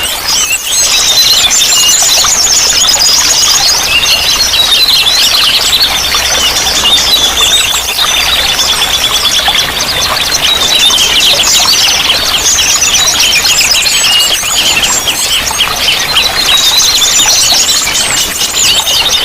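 Dense chorus of small songbirds chirping and trilling rapidly, many high-pitched calls overlapping without a break.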